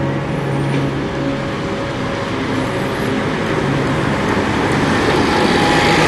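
Single-decker buses driving past close by: diesel engine running, with road noise building near the end as a second bus passes.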